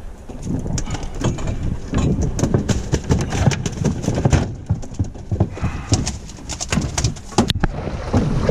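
Irregular clicks, knocks and rustles from hands handling gear and a plastic bag on a fibreglass boat deck, heaviest in two clusters, over a low rumble of wind on the microphone.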